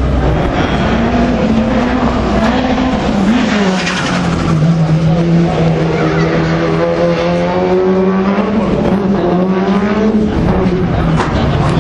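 Rallycross car engine running hard on track, its note holding high and wavering, dipping briefly a few seconds in and again near the end as the driver lifts or shifts.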